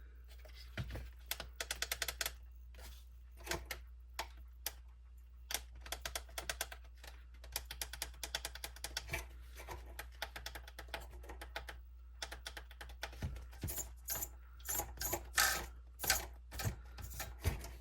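Axial SCX24 micro RC crawler being test-run after its ESC replacement, giving short bursts of rapid light clicking with brief pauses between them.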